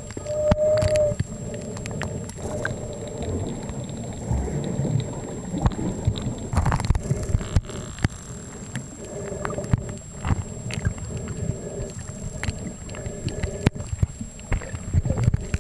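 Muffled underwater sound picked up by a camera held below the surface while snorkeling: low rumbling and gurgling water noise with many scattered clicks, and a brief steady tone near the start.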